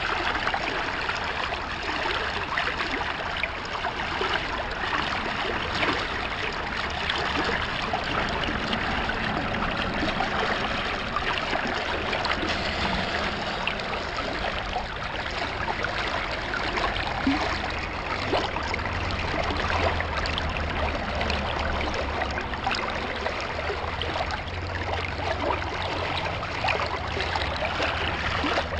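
Stream water rushing steadily through and around a small metal sampling sluice box set in the current. A low rumble joins in about two-thirds of the way through.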